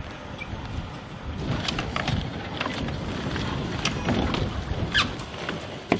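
A cooler box being carried and someone stepping aboard a boat: several short knocks and scuffs, a cluster about a second and a half in and another near the end, over steady outdoor background noise.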